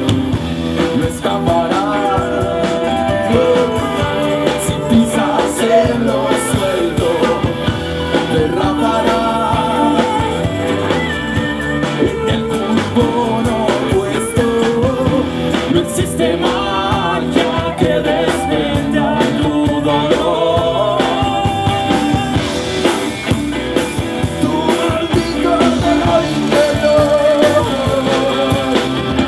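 Live blues-rock band playing amplified, with electric guitars, bass and drums and a man singing lead.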